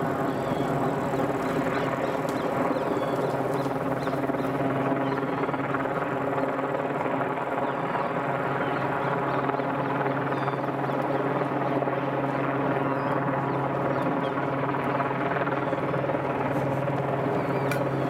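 Steady machine drone, even in pitch throughout, with a few faint high chirps over it.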